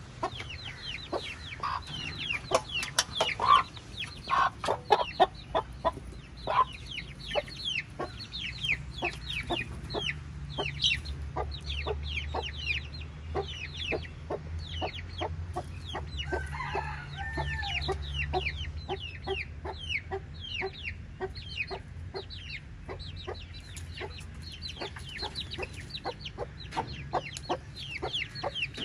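Sussex chicks peeping continuously, quick falling cheeps several a second, with a few louder chicken calls in the first few seconds.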